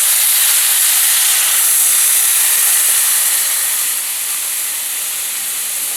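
Water poured into a hot pan of melted brown sugar, hissing loudly as it hits the hot syrup and turns to steam. The hiss eases a little about four seconds in.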